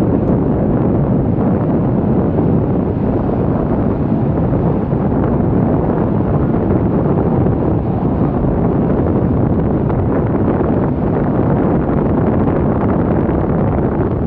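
Steady low rumble of the Avro Vulcan XH558's four Rolls-Royce Olympus turbojets during its display flypast, mixed with wind buffeting the microphone.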